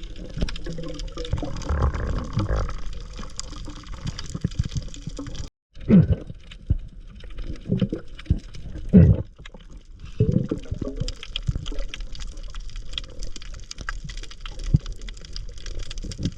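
Water sloshing and splashing, broken off by a sudden cut about five seconds in, followed by a few dull low knocks.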